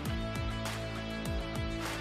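Background music: sustained chords over deep kick drums that fall in pitch, with a steady beat.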